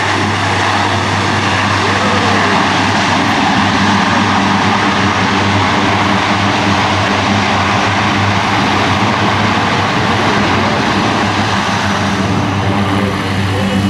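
Lockheed C-130J Hercules's four Rolls-Royce AE 2100 turboprops and six-blade propellers running loud and steady, with a low propeller hum under a broad engine roar, as the aircraft lands.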